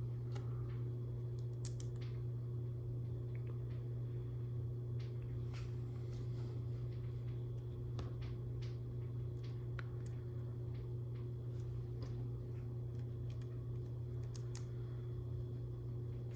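Light, scattered clicks of LEGO bricks being handled and pressed together, over a steady low hum.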